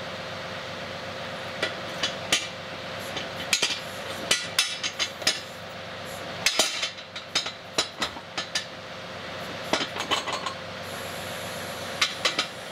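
John Deere 2038R tractor running steadily under a 270B backhoe, while the steel quick-change adapter and mechanical thumb clank and knock in short clusters of sharp metal-on-metal hits as the backhoe arm is moved.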